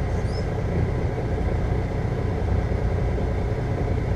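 Steady low rumble of an idling semi truck engine, heard inside the cab.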